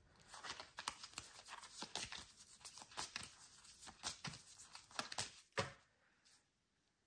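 A deck of oracle cards shuffled by hand: quick, irregular card flicks and rustles, ending with a louder snap about five and a half seconds in.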